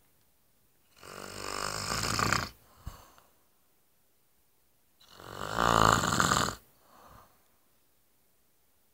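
A man snoring loudly in his sleep: two long, rattling snores about four seconds apart, each followed by a short, quieter sound.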